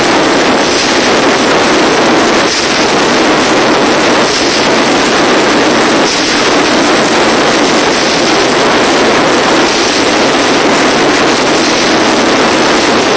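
Live experimental industrial noise music, loud and overloading the phone's microphone into a dense, steady wall of noise. Faint hits recur about every two seconds.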